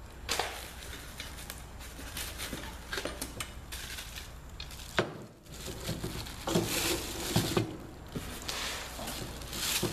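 Packing material rustling and crinkling as drill press parts are unpacked from the box, with scattered clicks and a sharp knock about halfway through as pieces are handled.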